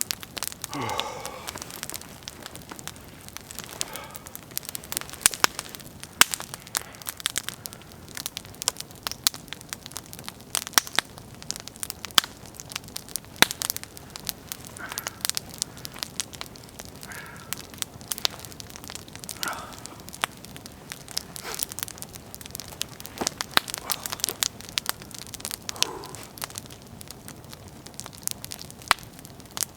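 Wood campfire crackling, with many sharp, irregular pops.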